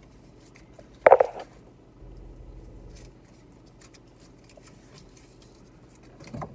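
Small clicks and crinkles of a pack of sugar-free gum being worked open by hand, with one brief louder knock or scrape about a second in.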